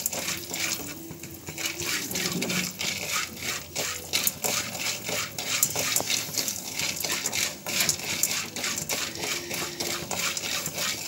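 Spoon stirring raw popcorn kernels in oil in a pan: a dense, irregular run of kernels rattling and scraping against the pan.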